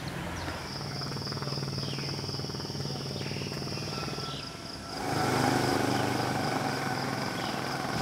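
A motor hums steadily under a steady high-pitched whine, with a few short chirps; about five seconds in, the sound gets louder and fuller.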